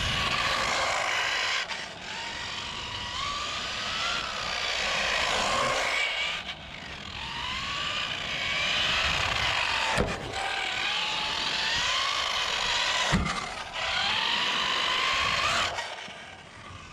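Electric motor and drivetrain of a 1/10-scale Kyosho Fazer Mk2 RC car whining, rising and falling in pitch as the car speeds up and slows, over tyre noise on coarse asphalt. Two sharp knocks come about ten seconds in and again three seconds later, and the whine fades near the end.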